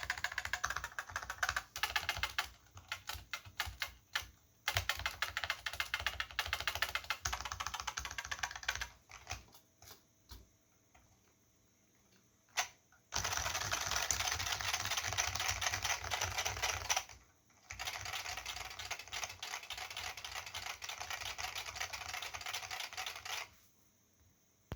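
Keystrokes on an Olivetti M15 keyboard's Futaba MA mechanical switches with PBT keycaps: fast typing in bursts, thinning to a few scattered taps about ten seconds in. After a short quiet spell come two long stretches of very rapid, unbroken typing.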